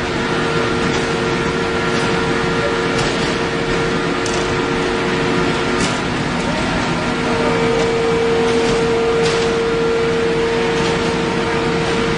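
Steel-sheet equalizing machine running: its rolls and drives give a loud, steady mechanical hum with a steady whine, and scattered light clicks. The whine and the overall level rise slightly about seven seconds in.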